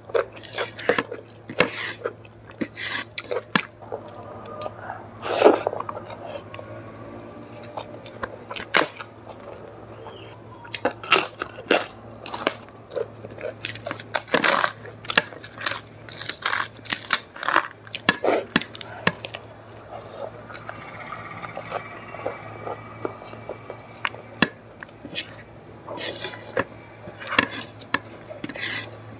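Close-miked eating sounds: fingers mixing rice and curry on a plate, and chewing with many irregular crisp clicks and crunches.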